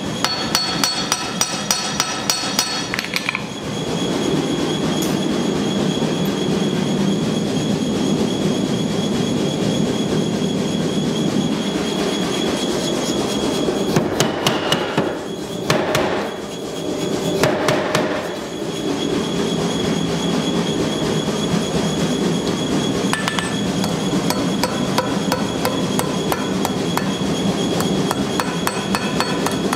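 Hand hammer forging hot steel on an anvil: quick, regular ringing blows at first, then about three seconds in a denser, steady clatter of lighter blows over a low din, with a brief lull and a few sharper strikes about halfway.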